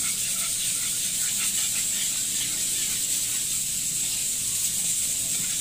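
A spoon stirring thick peanut sauce as it simmers in a pan, over a steady hiss.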